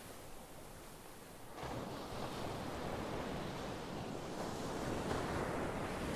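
Ocean surf washing in: a lull, then a wave swelling up about a second and a half in and holding.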